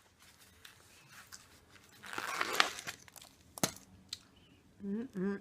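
Crispy spicy fried chicken being bitten into, a crunching, tearing burst about two seconds in, then a sharp click. A hummed 'mmm' of enjoyment starts near the end.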